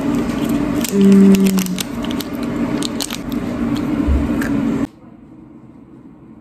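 A candy being eaten: crackling wrapper and crunchy biting and chewing close to the microphone, with a brief low hum about a second in. The sound cuts off abruptly about five seconds in, leaving quiet room tone.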